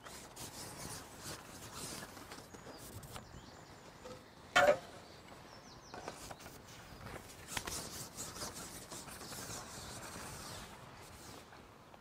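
A carbon fishing pole being handled and slid along, giving irregular rubbing and scraping sounds, with one short sharp knock about four and a half seconds in.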